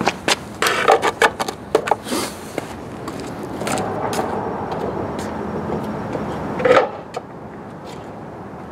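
Wheel chock being set down on asphalt and pushed against a car tire, with footsteps: a quick run of knocks and scrapes in the first couple of seconds, then one louder knock a little before the end.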